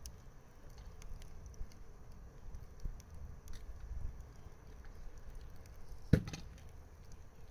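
Wood campfire burning with scattered faint crackles over a low rumble, and one sharp loud pop about six seconds in.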